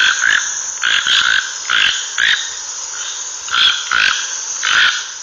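Toucan calling: a series of short, frog-like croaking calls, about two a second, with a pause of about a second in the middle, over a steady high-pitched hiss.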